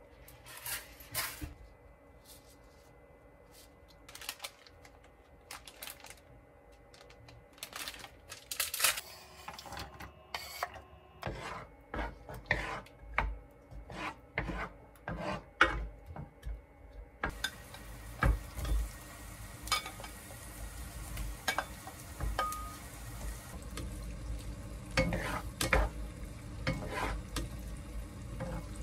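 Wooden spatula knocking and scraping in a nonstick frying pan as garlic slices are stirred in oil. From about halfway, a steady sizzle of frying runs under the stirring, with shrimp added to the garlic.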